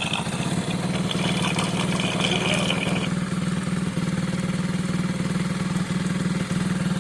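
Hero HF Deluxe motorcycle's single-cylinder four-stroke engine idling steadily, running quietly with a new timing chain and freshly adjusted tappets. The mechanic calls it silent, with no chain rattle left.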